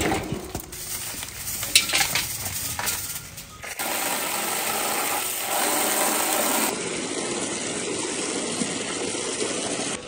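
A few light clinks and knocks, then from about four seconds in a steady rush of running tap water while mushrooms are washed.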